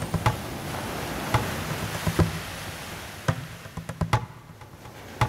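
Animation soundtrack music with sharp, irregularly spaced percussive knocks like wood-block hits over a soft background, thinning out near the end.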